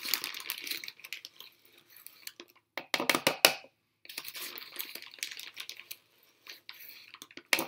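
Teaspoon scooping powdered sugar out of its bag and knocking it off into a measuring cup: bursts of scraping, crinkling and sharp clicks, repeated several times with short pauses between, the sharpest clicks about three seconds in.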